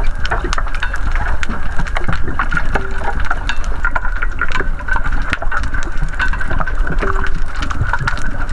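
Underwater sound picked up through a diving camera's housing: a steady low rumble with constant crackling clicks and a steady high whine.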